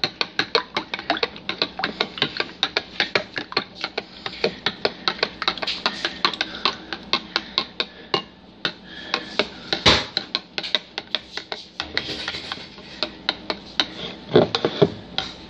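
A metal spoon clinking against the inside of a glass in quick, regular strokes, about five a second, while stirring chocolate syrup into milk, with one louder knock about ten seconds in.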